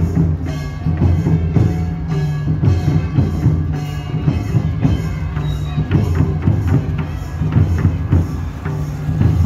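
Procession folk music with hand drums beating a steady rhythm over a sustained low hum.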